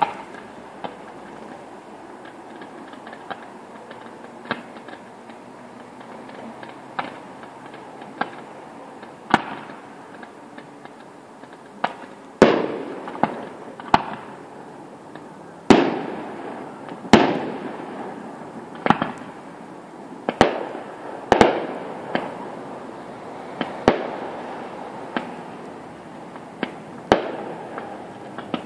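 Fireworks display: a run of sharp bangs, lighter and sparser at first, then from about twelve seconds in louder bursts every second or two, each trailing off as it fades.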